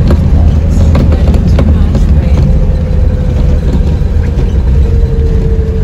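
Cabin noise of a 4x4 vehicle driving on a wet road: a loud, steady low rumble from engine and tyres, with scattered clicks and rattles and a faint whine that sinks slightly in pitch near the end.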